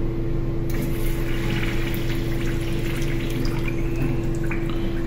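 Water running down a urinal bowl and draining away freely, starting under a second in. This is the test showing that the acid treatment has cleared the slow drain.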